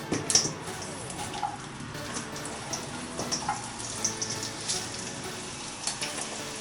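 Chopped onions and leeks frying in groundnut oil in a wok, a steady sizzle with scattered small pops and spits as they soften.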